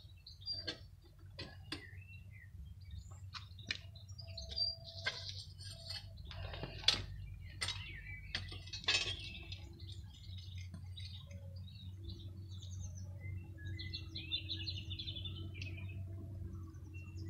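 Steel tongs clink and knock against a clay-graphite crucible as it is lifted out of a gas furnace and set down, a run of sharp metallic clicks over a steady low rumble. Birds chirp in the second half, while molten aluminium is poured into a steel ingot mould near the end.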